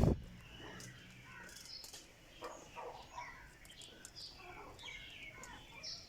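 Several quails calling and chirping in short, overlapping calls.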